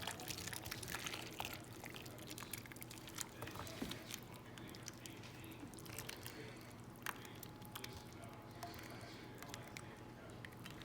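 Thick sauce being poured from a pan over beef short ribs: faint pouring and dripping with small clicks of a utensil and pan.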